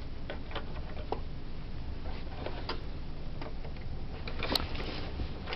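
Faint, irregular light clicks and ticks of Cat 5 twisted-pair wires and fingers brushing against a plastic 110 punchdown block as the cable is brought into place, a little busier about four and a half seconds in, over a steady low hum.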